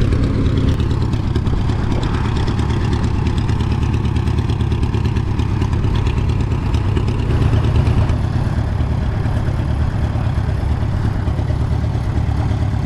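Vintage paraffin-fuelled tractor engine running steadily close by, a low, even rumble.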